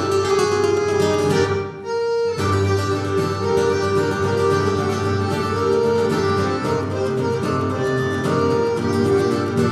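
Instrumental Breton traditional dance music played by a live folk band, with sustained melody lines over a steady beat. The music thins out for a moment just before two seconds in, then carries on.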